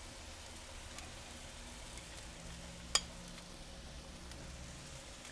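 Salmon fillets sizzling on aluminium foil on a hot grill: a faint steady hiss with scattered small crackles and one sharp click about three seconds in.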